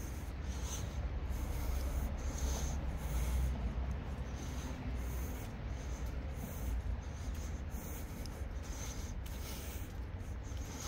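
Footsteps of a person walking in socks on wet, rough asphalt: soft scuffing steps at a steady walking pace over a low rumble.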